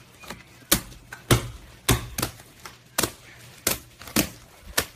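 Sharp pops and squelches from a large batch of soft slime as hands press and poke into it: about eight in all, roughly one every half second.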